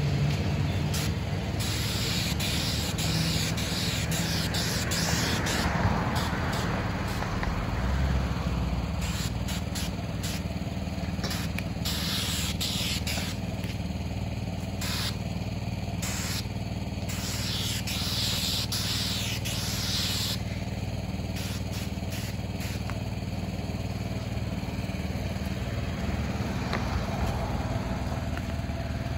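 Asphalt sealer spray wand hissing on and off in bursts of one to three seconds, over the steady hum of an engine.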